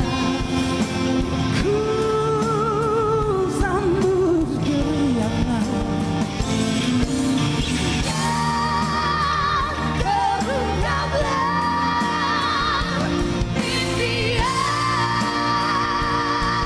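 Malay pop ballad sung as a duet with band accompaniment: long sung notes with vibrato.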